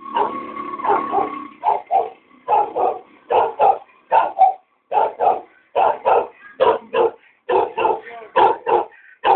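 Small dog barking over and over, mostly in quick pairs of short barks.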